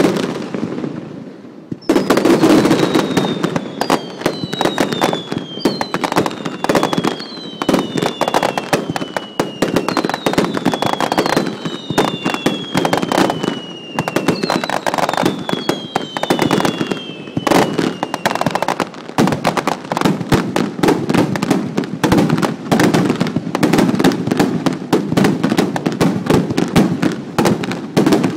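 Rapid-fire barrage of No. 4 (about 12 cm) aerial firework shells, bangs coming thick and fast with hardly a break after a brief lull at the start. Through the first two-thirds, a series of overlapping whistles each fall in pitch among the bangs.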